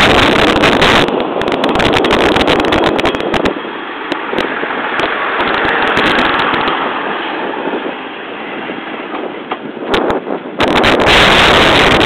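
KiHa 110-series diesel railcar pulling away and passing close by, its diesel engine and wheels running as it moves off. Wind buffets the microphone in loud crackling gusts, strongest at the start and again near the end.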